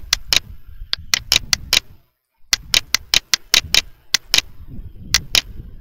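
Computer mouse button clicking in quick runs of several clicks with short pauses between: repeated clicks on a spin arrow.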